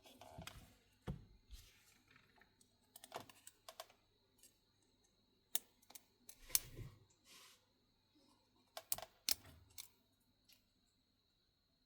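Small hand tools and plastic and metal phone parts being handled on a workbench: irregular sharp clicks and taps, a few at a time with pauses between, over a faint steady high tone.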